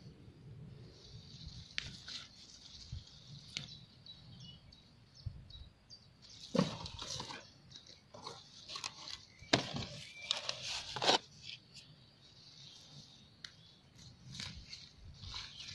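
Radishes being pulled by hand from dry, crumbly garden soil: leaves rustling and roots tearing free with soil crunching. There are three louder rustling crunches about six and a half, nine and a half and eleven seconds in.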